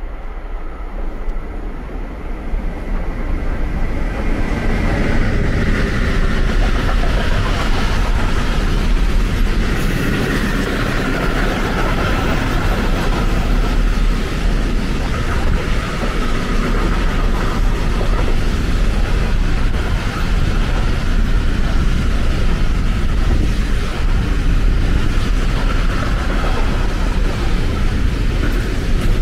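Long container freight train approaching and then running past close by: a steady rumble and rolling rail noise of wagon wheels on the track, building over the first few seconds and then holding loud as the wagons go by.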